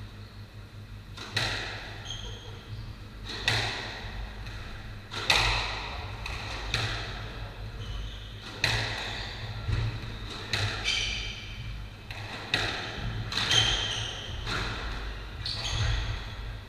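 Squash rally: the ball cracking off rackets and the court walls about every second or two, each hit ringing in the enclosed court, with short high squeaks of shoes on the wooden floor. A steady low hum runs underneath.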